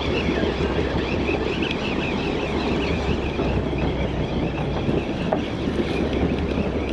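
Steady rushing noise of wind and sea against a moving boat, with a thin wavering high squeal over it that fades out near the end.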